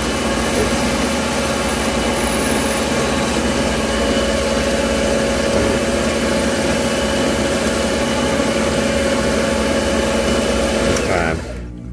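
Taurus 3 diamond ring saw running steadily, its diamond-plated ring blade grinding into thick dichroic glass at first to widen a cut. The saw cuts off suddenly near the end.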